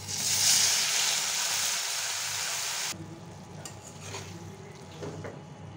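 Chopped garlic sizzling in hot oil in a wok, a loud steady hiss that cuts off abruptly about three seconds in, leaving only faint sounds.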